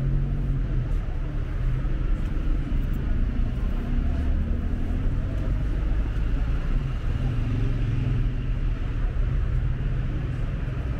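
City street traffic: car engines and tyres on the road beside the sidewalk, a steady low hum with no single event standing out.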